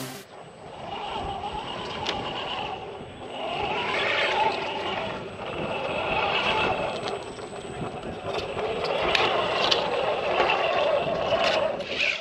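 Axial 6x6 RC crawler truck's electric drivetrain whining, swelling and easing off in repeated surges as it is throttled over rock, with its tyres scraping on the stone.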